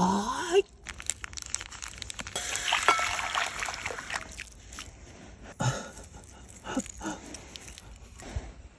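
Cooking sounds: scattered clinks and knocks, with hot broth poured from a pot into a ceramic ramen bowl in a steady splashing rush from about two and a half seconds in to about four seconds.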